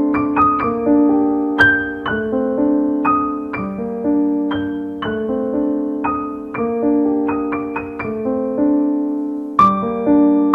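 Background piano music: a slow melody of single notes struck one after another and left to ring.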